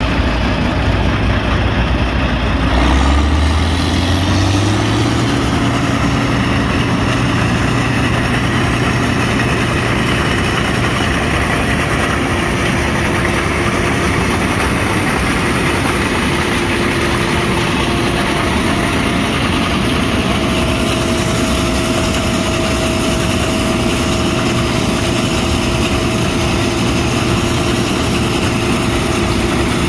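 Case IH 2188 Axial-Flow combine's six-cylinder diesel engine running. It speeds up a few seconds in and then holds a steady higher speed, with a steady whine from the machine joining later on.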